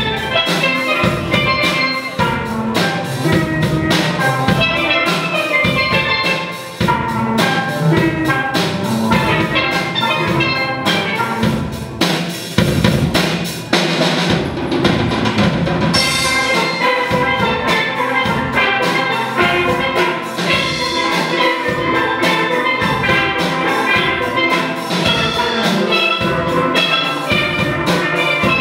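Steel band of several chrome steel pans playing a tune together, with a drum kit keeping a steady beat.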